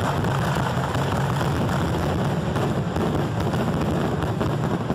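Fireworks finale barrage heard from right at the firing site: aerial shells launching and bursting in rapid succession, their reports running together into one continuous loud rumble.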